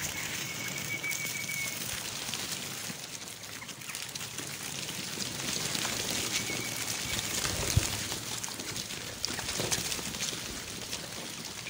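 A dense crowd of chukar partridge chicks cheeping together continuously, with a thin steady higher note standing out twice, near the start and about six seconds in. A single low thump about eight seconds in.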